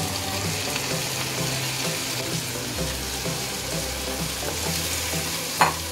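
Yogurt-marinated chicken tipped onto hot oil and fried onions in a nonstick pan, sizzling steadily as it is worked with a spatula. A single sharp knock near the end.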